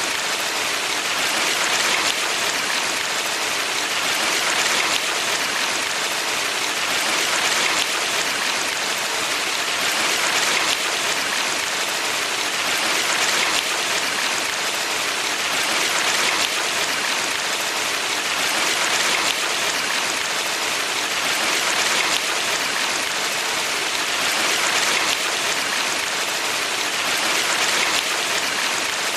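Water rushing in a valley stream: a dense, steady hiss that swells and eases slightly every few seconds.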